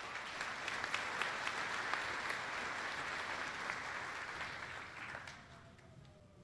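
Audience applauding, a dense clatter of many hands that dies away about five seconds in.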